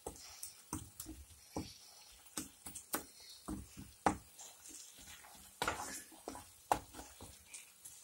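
Wooden spatula stirring a thick onion-tomato masala in a pan: irregular soft squelches, scrapes and taps against the pan, a few each second.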